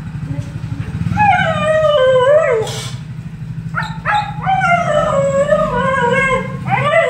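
Siberian husky howling in long, wavering calls at being separated from its owners: the first starts about a second in and slides down in pitch, and two more follow from about four seconds in. A steady low hum runs beneath.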